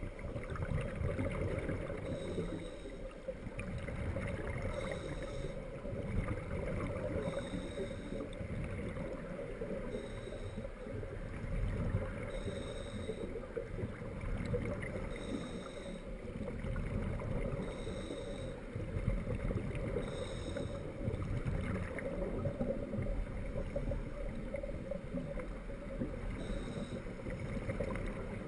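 Underwater noise heard through a submerged camera: a steady low rumble and hiss. Over it, a short high ping sounds about every two and a half seconds, pausing for a few seconds in the last third.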